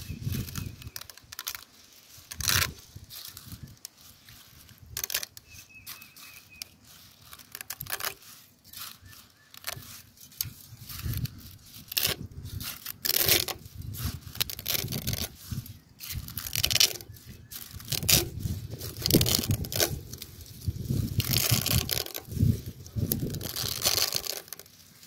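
Dry spaghetti snapping as a bundle is broken into pieces and pressed down into a steel pot with a metal spatula: irregular sharp cracks, some in quick clusters.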